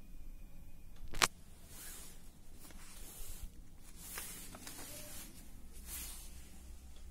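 Paper pages of a question booklet being handled and turned over, with soft rustles, and one sharp click about a second in that is the loudest sound.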